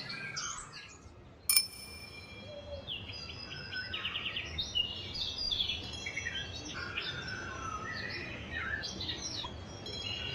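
Several songbirds chirping and trilling, with a bell struck once about a second and a half in, its ring fading slowly.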